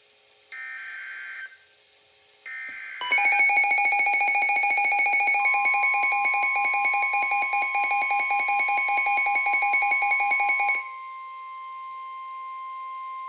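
Emergency Alert System tones. Two roughly one-second bursts of SAME header data buzz come first. About three seconds in, a loud, rapidly pulsing electronic attention signal starts. A steady weather-radio warning tone comes in under it and carries on alone after the pulsing stops, near eleven seconds in.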